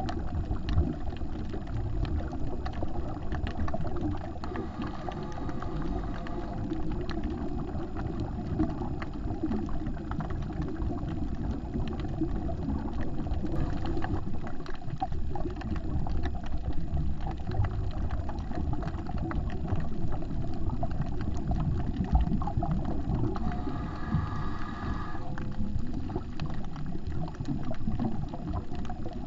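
Underwater sound of a reef dive picked up by a GoPro in its waterproof housing: a steady low rumble full of dense crackling clicks. A brief higher hiss comes in about five seconds in and again near the end.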